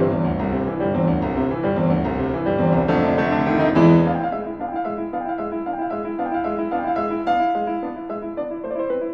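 Background piano music: fuller low chords in the first four seconds, then lighter, sparser notes higher up.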